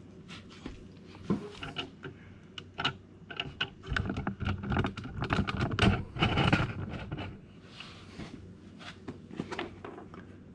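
Handling noise from a rack effects processor being turned around and its patch cables moved: scattered small clicks and knocks, with a louder stretch of rubbing and bumping in the middle.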